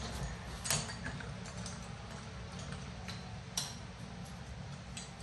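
A few light clicks of metal doorknob parts being fitted together as a new Kwikset knob is seated on the door, the clearest near the start and about two-thirds through.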